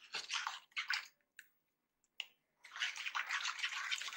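Metal spoon beating thin gram-flour batter in a steel bowl: wet, sloshing strokes, a few short ones at first, then fast continuous beating near the end.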